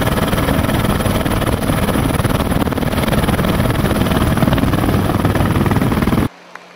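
Helicopter rotor and engine noise heard from on board, loud and steady with a rapid low beating, cutting off suddenly near the end.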